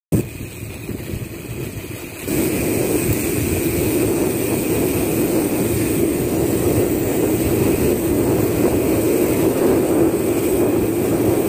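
Wind and road noise rushing over the microphone while riding a bicycle on pavement as it gathers speed. The rush gets louder about two seconds in and then holds steady.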